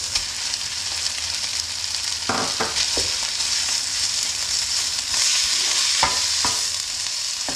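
Minced meat frying with onion, carrot and rice in a pan: a steady sizzle while a wooden spoon stirs and breaks up the meat, knocking against the pan several times.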